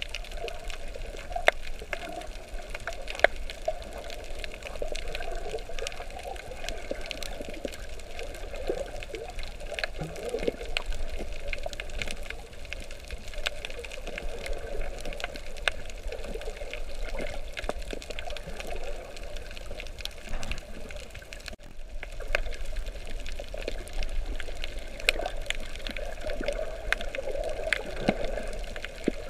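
Water noise from snorkeling: a steady wash of moving water with many small sharp clicks scattered through it. It briefly drops out about three-quarters of the way through.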